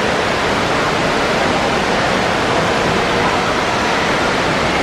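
Steady rushing and splashing of water in a water park's shallow pool, even and unbroken, with faint children's voices beneath it.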